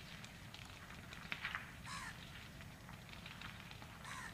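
Two short bird calls, one about two seconds in and one near the end. They sit over a faint low steady rumble and scattered light clicks.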